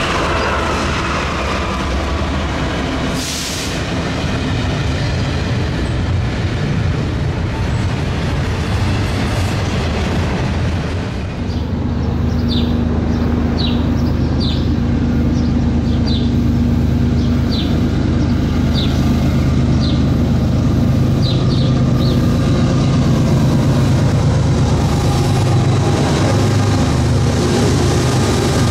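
Double-stack container freight train rolling past, steel wheels clattering on the rails. About eleven seconds in this gives way to the steady drone and building rumble of approaching diesel freight locomotives, with a string of short high ticks over it.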